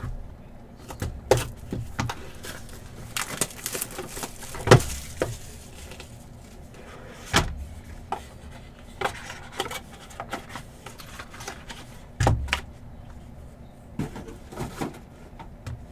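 Cardboard trading-card box being opened and cards in rigid plastic holders handled and stacked on a table: scattered clicks, taps and knocks, the loudest a little under five seconds in.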